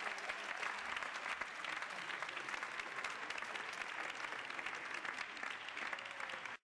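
Theatre audience applauding: dense, steady clapping from many hands that cuts off abruptly near the end.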